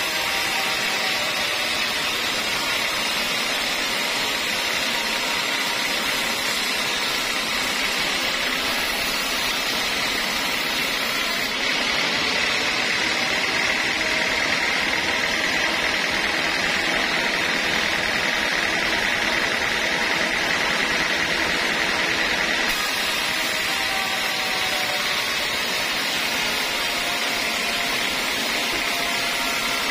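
Homemade sawmill machinery running steadily, a continuous mix of motor and saw noise, a little louder for about ten seconds in the middle.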